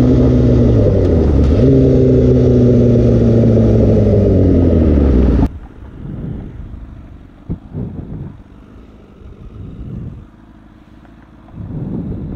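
2016 Honda CBR1000RR inline-four with an aftermarket Toce exhaust, running at low revs, with a brief dip in pitch about a second and a half in. About five and a half seconds in, the sound drops abruptly to a much quieter, muffled engine rumble.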